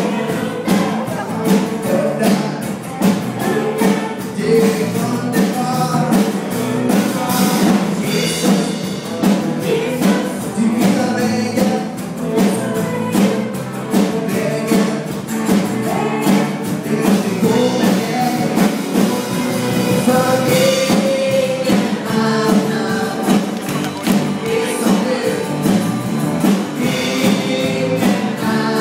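Live worship band playing a song: a woman sings lead over acoustic and electric guitar, keyboard and drums keeping a steady beat.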